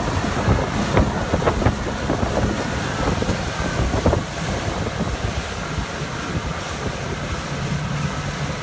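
Pontoon boat under way with its Mercury 300 outboard running, the rush of water and wake mixed with wind buffeting the microphone in gusts during the first half. The outboard's steady low hum comes through more clearly near the end.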